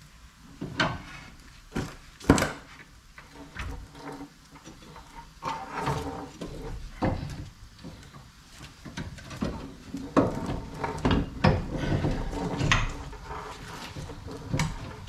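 Irregular metal clunks, knocks and scrapes as the steering knuckle of a 2008 GMC Envoy is worked by hand onto the CV axle and the lower ball joint stud. The loudest knock comes about two seconds in, with a busy run of clunks later on.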